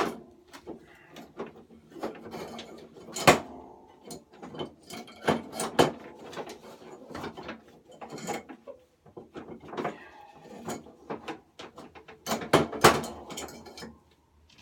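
Metal mower parts rattling and clicking as a control cable is worked and pulled out through the mower's fittings. The sound is a string of irregular clicks and knocks, with a louder knock about three seconds in and a cluster of louder knocks near the end.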